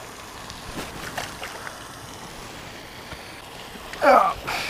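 Wind buffeting the microphone over a steady outdoor hiss, with a few light clicks in the first couple of seconds. About four seconds in comes a short voiced exclamation whose pitch slides downward.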